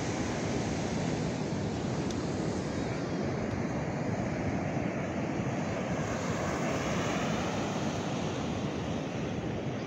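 Ocean surf breaking and washing up the beach in a steady, continuous rush, with wind on the microphone.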